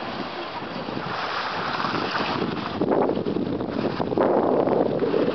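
Wind buffeting the microphone, a rumbling noise that gusts louder about halfway through.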